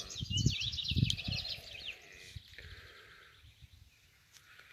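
A small bird singing a quick phrase of rapid high notes for about the first two seconds, then only faint outdoor background. Two low thumps hit the microphone about half a second and a second in.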